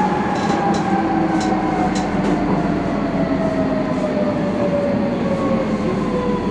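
Docklands Light Railway train running, heard from inside the carriage: a steady rumble with a motor whine that falls slowly in pitch. A few light clicks come in the first two seconds.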